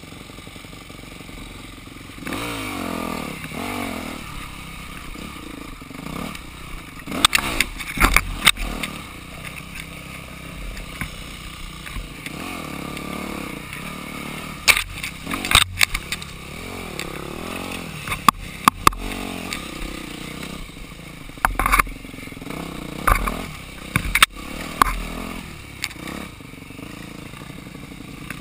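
Dirt bike engine ridden slowly over a rough trail, its pitch rising and falling as the throttle is worked on and off. Frequent sharp knocks and clatter come in clusters through the ride.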